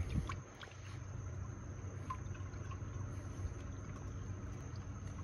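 Motor oil being poured from a bottle through a funnel into a car engine's oil filler, a steady pour, with a brief low thump at the start.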